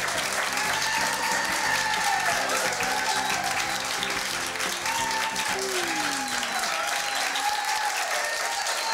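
Audience applauding: a steady, dense clapping, with tuneful music continuing underneath.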